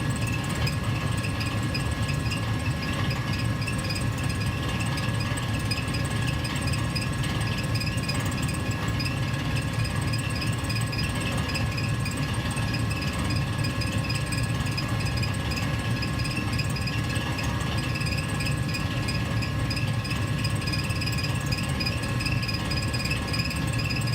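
Gas furnace heater running steadily: a continuous low rumble with faint steady high tones above it, unchanging throughout.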